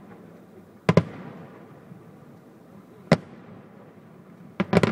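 Fireworks aerial shells bursting: a sharp bang about a second in, another about three seconds in, then a quick run of bangs near the end.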